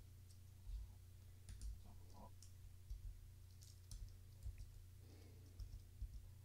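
Faint, scattered clicks of computer keyboard keys being typed, over a low steady hum.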